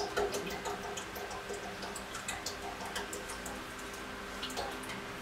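Cooking oil poured from a plastic bottle into a deep fryer, a thin trickle with many small drips and ticks. A faint steady hum runs underneath.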